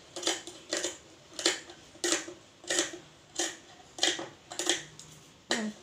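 Tailoring scissors snipping through silk fabric in about nine short, even snips, roughly one and a half per second, as a sleeve piece is cut out.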